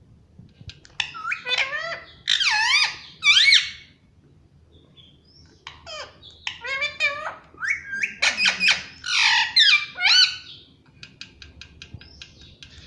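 Indian ringneck parrot calling: two bouts of loud, squawking calls that swoop up and down in pitch, then a run of quick short clicks near the end.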